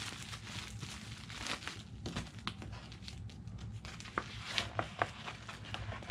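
A clear plastic bag around folded jeans crinkling as it is handled and slid into a paper Priority Mail envelope, with a few sharp crackles about four to five seconds in.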